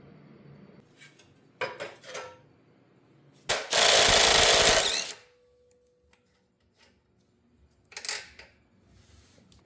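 An impact wrench runs in one loud burst of about a second and a half, taking a rear wheel or hub off a Honda ATC70 axle. Short metal clanks come a second or two before it and again near the end.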